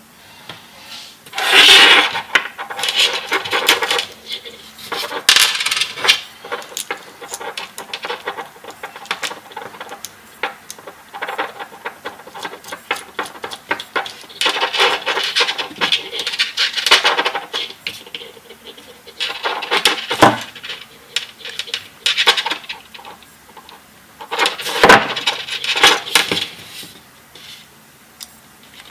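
Small hard objects clinking and rattling as they are handled, in several bursts of a second or two with pauses between.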